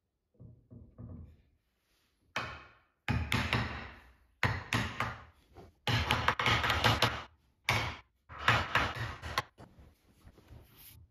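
A hammer striking the top of a wooden block, tapping it down onto a curved wooden frame: several runs of quick, sharp wood-on-wood blows from about two seconds in, stopping shortly before the end, with a few light knocks before them.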